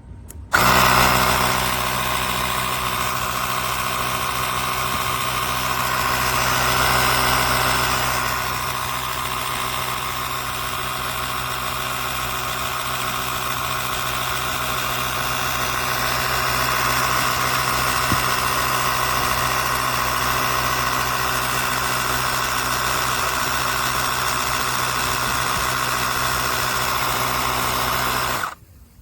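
Cordless portable tire inflator's small electric air compressor running steadily. It starts abruptly just after the start and cuts off suddenly shortly before the end.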